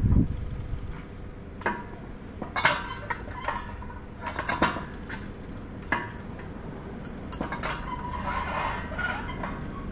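Metal clinks and knocks from a homemade hand-lever pipe bender as a round steel pipe is worked through its die, a handful of separate sharp strikes spread out, with a loud low thump at the start and a stretch of metal-on-metal scraping near the end.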